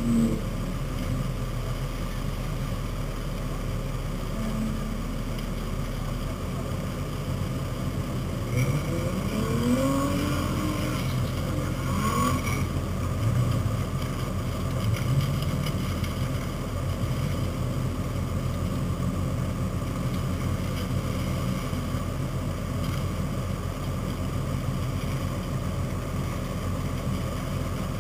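Four-wheel-drive truck engines running and revving as they drive off-road, with the revs rising sharply twice about ten and twelve seconds in, over a steady low hum.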